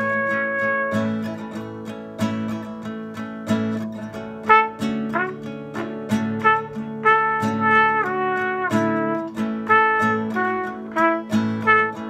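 Classical guitar strumming a repeating two-chord pattern in B major while a trumpet improvises over it. A held trumpet note ends about a second in, and from about four and a half seconds the trumpet plays a melodic phrase with scooped, sliding notes.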